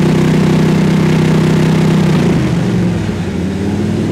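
Carbureted 427 V8 of a Contemporary Cobra replica running during an ignition-timing check. It holds steady revs, the revs drop away about two seconds in, and they pick back up near the end.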